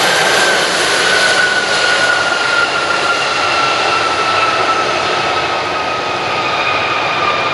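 Boeing 737-500 airliner's CFM56 jet engines running loud, with a rushing roar and a fan whine that slides slowly down in pitch.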